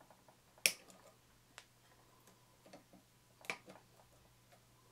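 Side cutters snipping through the wire leads of an old capacitor: two sharp snaps about three seconds apart, with a few faint clicks of the tool between them.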